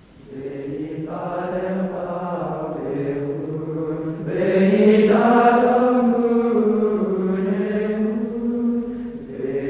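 Slow choral chant: voices holding long sung notes, starting softly and swelling louder about four seconds in, then easing near the end.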